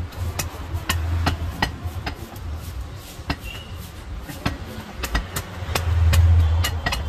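Heavy cleaver chopping into a skinned goat head on a wooden block: a series of sharp, irregular chops, about two a second. Under them runs a low rumble that swells about six seconds in.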